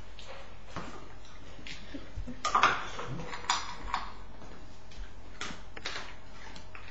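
Jack Russell terrier eating from a stainless steel bowl in a metal stand: scattered clinks and ticks against the bowl, the loudest cluster about two and a half seconds in, over a low steady hum.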